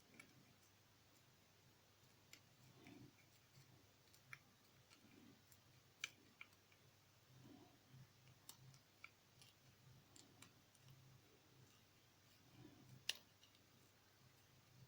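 Faint, scattered sharp clicks and soft taps as a plastic Kinder Surprise capsule half is cut and trimmed into a blade, with the sharpest click about thirteen seconds in.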